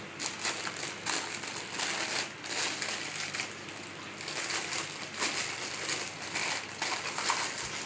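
Plastic packaging crinkling and rustling as it is handled and pulled open, with irregular crackles throughout.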